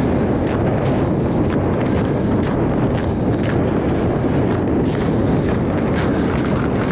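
Strong wind buffeting the microphone: a steady, loud rushing noise.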